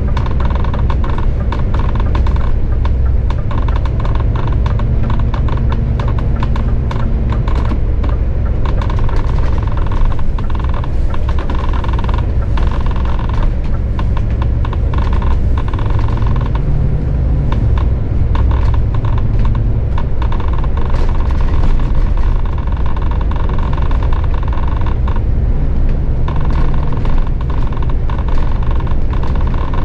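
Cab noise of a Scania Fencer f1 single-deck bus on the move: a steady low engine and drivetrain rumble with road noise, its pitch rising a few times as the bus picks up speed. Frequent irregular clicks and rattles run over the top.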